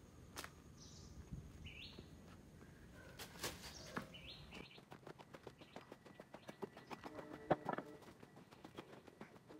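Quiet outdoor ambience with a few short bird chirps and scattered clicks of footsteps and handling. The low background hum drops away about halfway through, leaving a run of small ticks.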